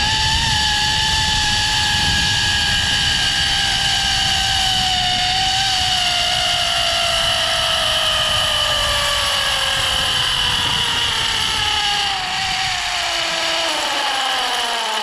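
Zipline trolley's pulley wheels running along the steel cable: a high whine that slowly falls in pitch as the rider slows toward the landing platform, dropping faster near the end. Under it is a rush of wind on the microphone that fades over the last few seconds.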